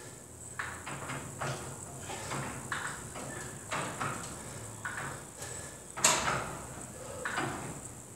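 A person breathing hard in short, sharp breaths about once a second, in time with dumbbell reps; the loudest breath comes about six seconds in.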